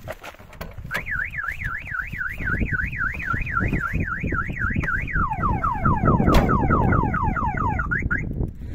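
Car alarm siren sounding: a fast warbling tone about four times a second, switching about halfway to rapid falling whoops, then cutting off shortly before the end. A single sharp click is heard during the whoops.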